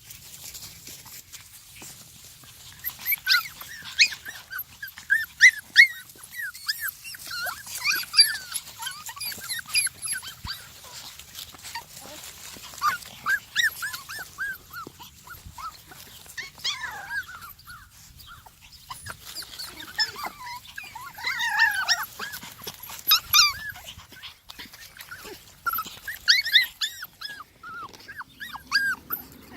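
A litter of young puppies whimpering and squeaking: many short high-pitched cries, often several at once, coming in clusters.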